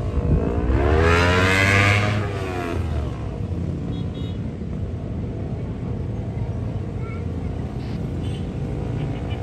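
A motor vehicle engine passes close by, loudest about one to two seconds in, its pitch rising and then falling. A steady low rumble runs underneath.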